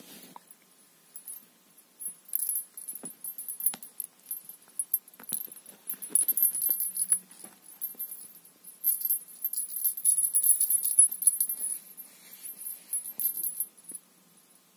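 Small bell with a ball inside, on a feather cat-teaser wand, jingling in irregular bursts as the wand is shaken and the cat bats and grabs at it, with a few soft knocks in between.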